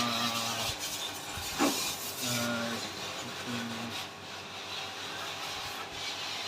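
Water spray from a washer jet hissing steadily as an AC evaporator coil is washed, with a brief knock about one and a half seconds in.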